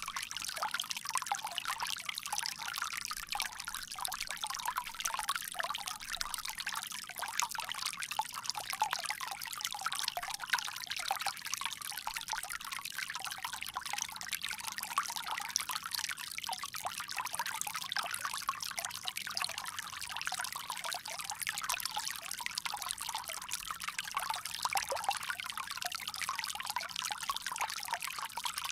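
Water pouring steadily from a bamboo spout, an unbroken trickling splash.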